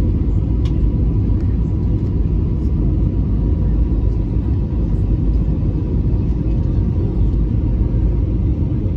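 Steady, even cabin roar of an Airbus A320neo on its descent to land, heard from a window seat over the wing: CFM LEAP-1A engine and airflow noise, deep and unbroken, with a faint steady hum above it.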